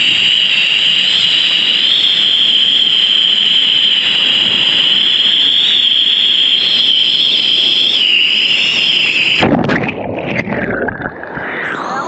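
Steady, loud rush of waterfall water close to the microphone. About nine and a half seconds in it abruptly turns muffled and gurgling as the camera drops into the water.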